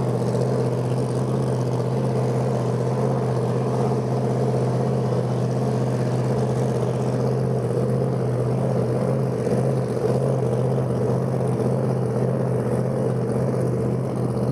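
Supercharged Hemi V8 of a Plymouth Road Runner drag car idling steadily while staged at the line, its note holding even with no revving.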